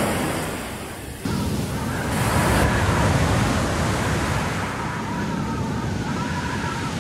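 Ocean surf washing onto a beach, a steady rush of waves. The sound changes abruptly about a second in, switching to a fuller wash of surf.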